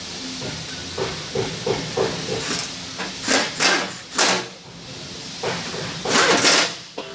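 Several short, sharp hissing bursts, like a jet of air or spray, over a steady background hiss.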